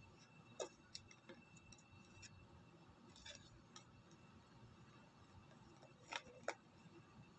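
Near silence broken by a few light clicks and taps from hands handling a smartphone and its box; the loudest two come close together about six seconds in.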